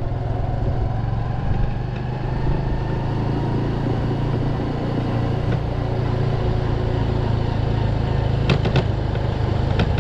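Motorcycle engine running steadily at low city speed, with wind noise from riding. A few brief sharp clicks come near the end.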